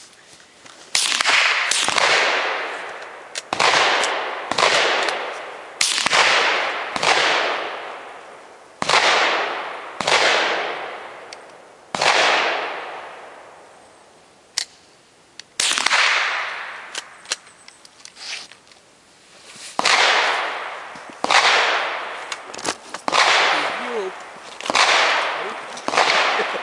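.22 LR rifles firing about twenty shots at an irregular pace, each crack followed by a long echoing decay.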